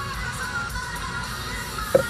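Rock music with guitar and singing playing from a radio, with one sharp knock near the end.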